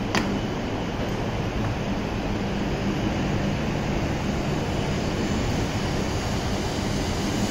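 Shinkansen train at a station platform: a steady rumble and rushing noise with a faint low hum, and a single sharp click just after the start.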